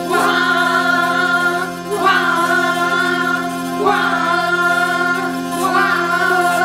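Hurdy-gurdy playing a slow tune over its steady drones, with a new melodic phrase about every two seconds.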